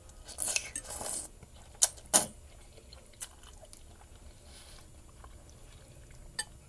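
Close eating sounds from a bowl of creamy chicken ramen noodles: about a second of mouth noise from eating, then two sharp clinks of a utensil against the bowl about two seconds in, and single fainter clinks later.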